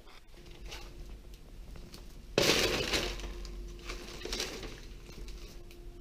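A loud crunching, breaking crash about two and a half seconds in, then a few lighter crunches, like debris or glass breaking underfoot. A faint steady hum runs underneath.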